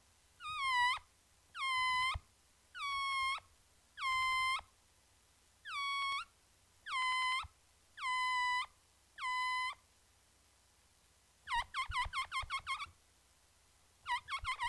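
Air squealing out through the stretched neck of a rubber balloon as it deflates: eight short, high squeals, each dipping in pitch at its start and then holding steady, followed a little after halfway by a fast fluttering squeal and another near the end.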